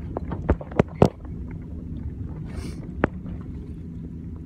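Pickup truck running and rolling slowly over rough ground, heard from inside the cab: a steady low rumble with several sharp knocks and rattles, the loudest about a second in, and a short hiss midway.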